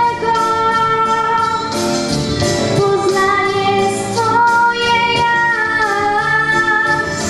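A young girl sings a song into a microphone in long held notes over instrumental accompaniment.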